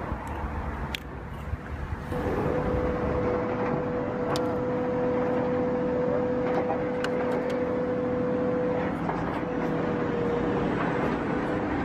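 Steady engine-like running sound with a held droning tone, starting about two seconds in, with a few light clicks over it.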